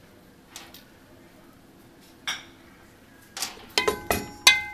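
Wooden spoon stirring sliced onions in an aluminium pressure cooker: a couple of soft scrapes, then in the last second and a half a quick run of knocks of the spoon against the pot, each leaving the metal ringing.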